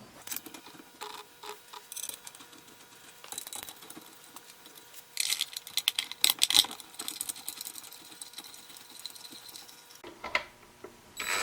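Small metal parts and hand tools clicking and rattling as the valve body goes onto a Ford C6 automatic transmission, with a dense run of rapid clicks about five to seven seconds in.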